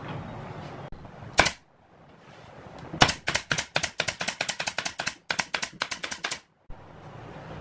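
Pneumatic brad nailer firing in quick succession, about twenty shots in three and a half seconds with a short break midway, driving brads through plywood panels to join them. A single sharp knock comes a second or so before the run.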